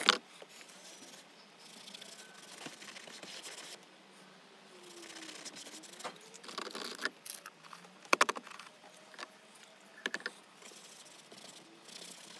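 Cloth rubbing and scrubbing over a leather car seat in stretches, working leather prep in to strip old colourant, with a few sharp clicks or knocks, the loudest about eight seconds in.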